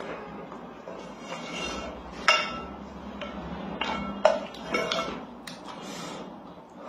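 Wooden spoon scraping and knocking against the metal inner pot of a rice cooker while scooping rice porridge, with two sharp knocks about two and four seconds in, mixed with the mouth sounds of eating.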